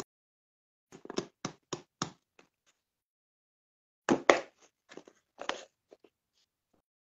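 A plastic food tub and its clear plastic lid being handled, giving two runs of sharp clacks and taps, the first about a second in and the second, louder, about four seconds in.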